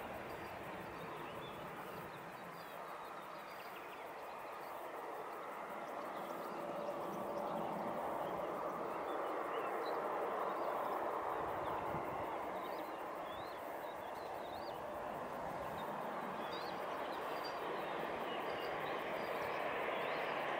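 Bombardier CRJ-900 jet on final approach with gear down. The rush of its twin rear-mounted turbofans slowly grows louder as it nears, and a higher whine comes through near the end. A few faint high chirps are scattered over it.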